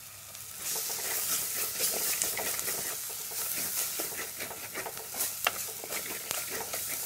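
Onion-tomato masala sizzling in oil in a clay pot while a spatula stirs and scrapes it, many short scraping strokes over a steady sizzle, starting about a second in.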